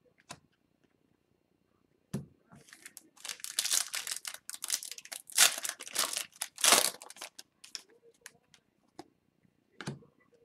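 Foil trading-card pack wrapper being torn open and crinkled: a sharp click about two seconds in, then several seconds of rustling and crackling, with a few light ticks after.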